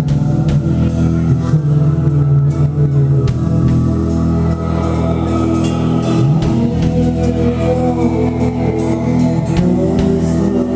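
Live rock band playing: electric guitar, bass, keyboard and drum kit with cymbal hits, loud and steady, with the vocals hard to hear in a small room.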